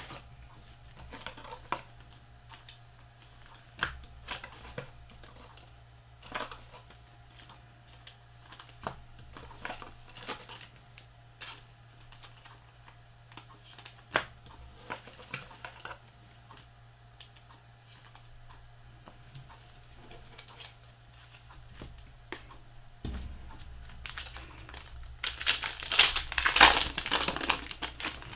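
Trading cards handled with scattered light clicks and taps, then a few seconds of loud crinkling and tearing near the end as a foil card-pack wrapper is ripped open.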